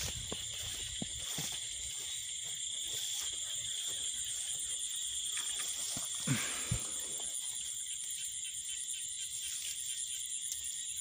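Night chorus of crickets and other insects: a steady high trilling throughout. It comes with soft rustles and thumps of footsteps through grass, the loudest a pair of thumps about six seconds in.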